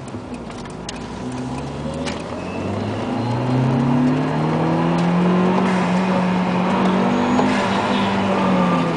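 Turbocharged car engine heard from inside the closed cabin, going to wide-open throttle a few seconds in. It grows louder and its tone climbs slowly as the revs rise.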